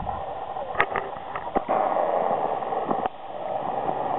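Hikers' footsteps rustling and crunching through dry leaf litter and brush, with a few sharp clicks or snaps scattered through it.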